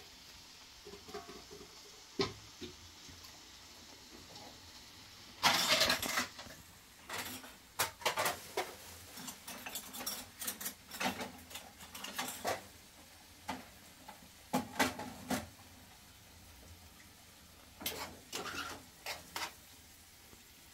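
Pots, metal bowls and plastic basins being handled on a floor: irregular knocks, clinks and scrapes, with a short rushing noise about five and a half seconds in.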